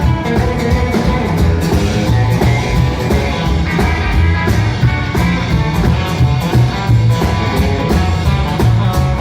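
Live rock-and-roll band playing an instrumental passage: electric guitar over a driving bass line and steady drum beat.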